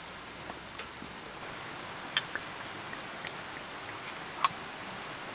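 Campfire cooking crackling: a steady hiss with a few sharp pops, about a second apart.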